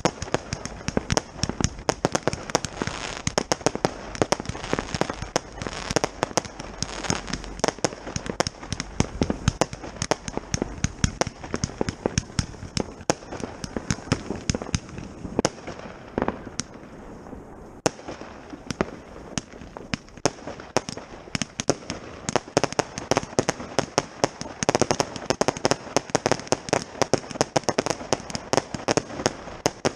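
Consumer firework batteries (cakes) firing: rapid shots and bangs with crackle, almost without a break, thinning briefly a little past the middle.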